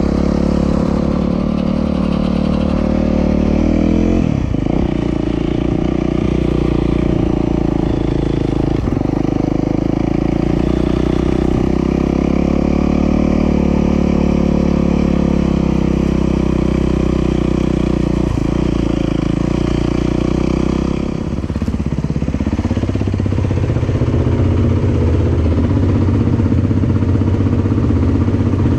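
Dirt bike engine running steadily, its note breaking briefly a few times and settling into a lower, deeper note about twenty-one seconds in.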